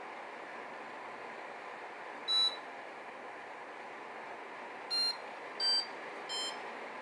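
Samsung AW05B5171TWA window air conditioner running with a steady hiss, and four short electronic beeps from the unit, the kind it gives when a setting is changed, about two seconds in and then three close together near the end.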